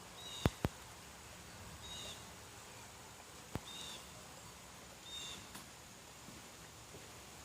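Light rain with a few sharp drip clicks, while a bird gives four short high chirps about every one and a half seconds.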